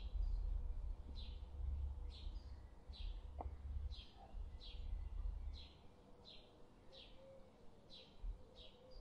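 A bird repeating one short, falling chirp about twice a second, over a low rumble that fades out about six seconds in.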